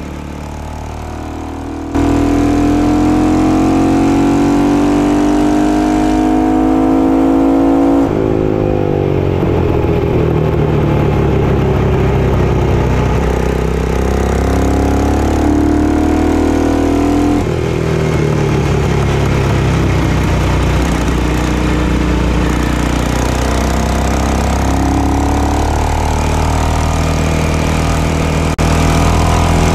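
Onboard sound of a classic Ducati 450 single-cylinder racing motorcycle at speed, the engine note climbing with throttle and dropping sharply at gear changes several times, with wind noise. It is quieter for the first two seconds, from a Ducati 250's onboard camera.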